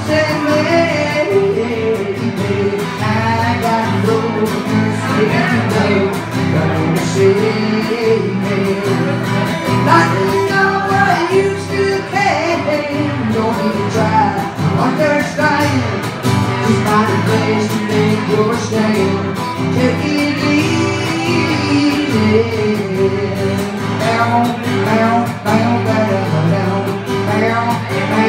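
A woman singing solo to her own strummed acoustic guitar.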